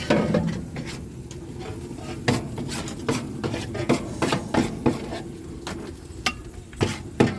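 Metal cooking utensils at a dosa stall clinking and scraping in a run of irregular sharp knocks, over a steady low background.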